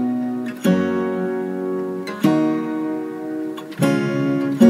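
Background music: acoustic guitar strumming chords, a new chord struck about every one and a half seconds.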